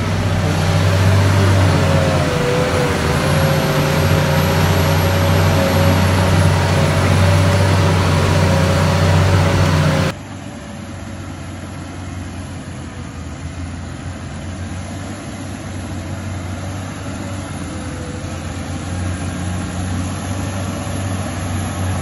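Tractor engine working under load, heard from inside the cab, a steady hum with a wavering whine above it. About ten seconds in this cuts off suddenly to the engines of two New Holland tractors working in tandem, a 185 hp tractor pulling in front of a 215 hp tractor on a plough, heard from outside and growing louder as they approach.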